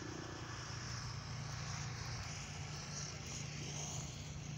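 A steady low engine hum with a faint hiss over it, unchanging throughout.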